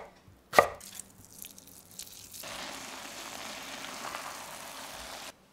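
A kitchen knife chops through aubergine onto a wooden cutting board: one sharp chop with a few light taps after it. Then a frying pan of vegetable filling sizzles steadily for about three seconds and cuts off suddenly.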